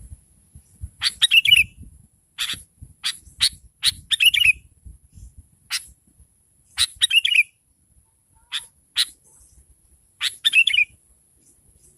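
Sooty-headed bulbul calling: short, sharp notes in clusters every second or two, several ending in a quick falling warble.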